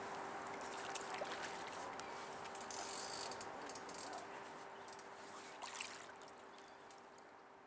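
A hooked grayling splashing at the surface as it is played on a float rod and centrepin reel, with a flurry of splashing about three seconds in and a few sharp clicks, over steady river hiss and a faint steady hum; the sound fades toward the end.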